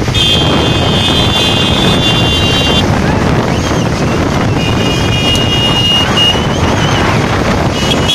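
Wind buffeting the microphone of a moving scooter over the running engines of motorbikes and scooters riding alongside. Two long, steady high-pitched tones sound over it, one just after the start and one around the middle.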